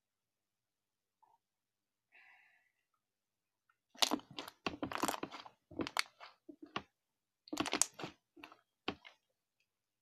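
Thick slime being kneaded and stretched by hand: a run of short, sharp squelches and pops starting about four seconds in.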